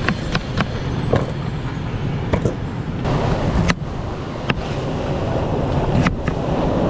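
Kitchen knife cutting raw potato and sweet potato against a hard board, an irregular run of sharp taps as the blade strikes through. Steady wind on the microphone and surf underneath.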